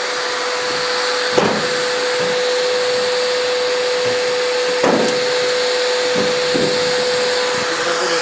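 Construction vacuum cleaner running in blow mode: a steady rushing hiss with a constant motor whine. Two short knocks come through, about a second and a half in and again about five seconds in.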